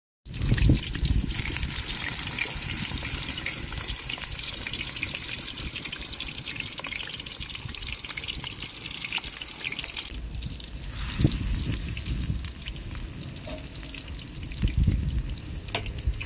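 Eggplant slices sizzling and crackling in hot oil in a wide steel pan, with a sharp knock about eleven seconds in as the slices are turned.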